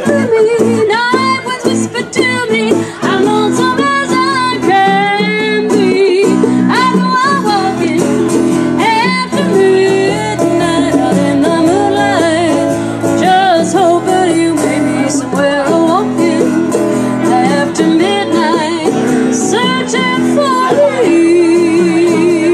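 Live female singing with guitar accompaniment, the melody sliding and wavering with vibrato on held notes, near the end one long note held with a steady vibrato.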